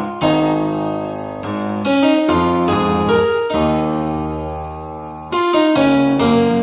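Keyboard playing a slow instrumental introduction: a series of struck chords and notes, each fading away before the next is played.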